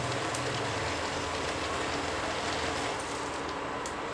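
Pan of sautéed pechay simmering on the stove: a steady sizzling hiss with a few faint pops.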